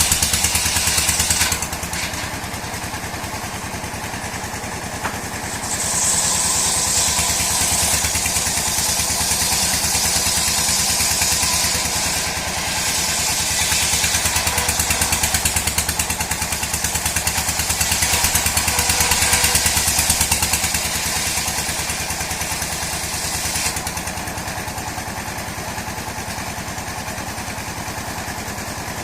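Engine-driven sawmill running steadily, its saw cutting through dry mahogany: the sound grows louder and hissier from about six seconds in, dips briefly, then eases back to the engine alone for the last few seconds.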